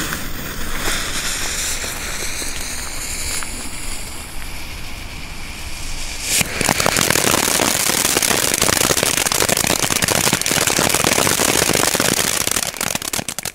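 Hissing as the fuse of a small ground fountain firework (White Pine Flower fountain) is lit and burns. About six seconds in the fountain erupts into a loud, steady spray of hissing, crackling sparks, which stops shortly before the end.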